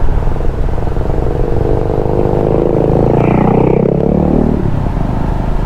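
Honda ADV150 single-cylinder scooter under way, its engine drone mixed with steady wind and road rumble at the rider's microphone. Around the middle, an engine note rises and falls for a couple of seconds.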